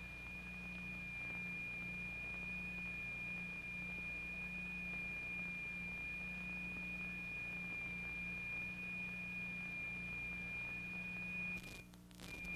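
Steady high pure tone, the note driving the vibrating plate, over a low mains hum. The tone steps down in pitch at the start and cuts out briefly near the end.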